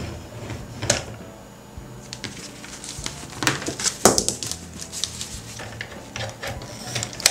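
Hard plastic toy parts clicking and knocking as they are handled: a toy van, its plastic pull handle and a doll moved against each other and the tabletop, with scattered clicks, the sharpest about four seconds in and just before the end.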